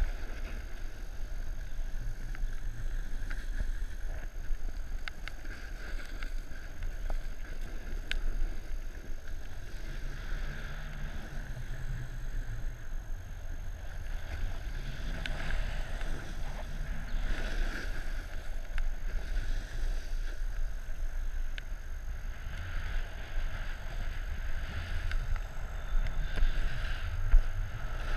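Snowboard sliding and carving over snow, a continuous rushing hiss over a low rumble of wind on the microphone, swelling and easing several times through the run.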